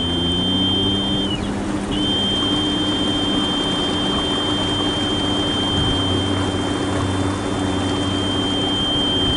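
Small boat's motor running steadily while underway, with water noise along the hull. A steady high-pitched whine runs over it and drops out for about half a second a little after the start.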